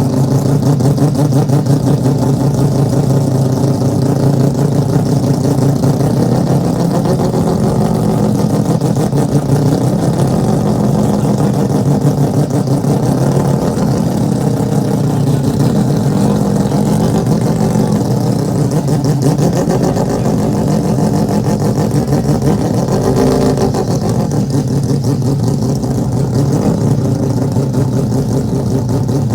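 Mazda four-rotor rotary engine running steadily at a raised idle, its note wavering slightly in pitch now and then without a full rev.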